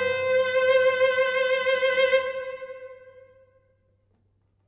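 Background music: a single held note with its overtones, fading out to silence about three and a half seconds in.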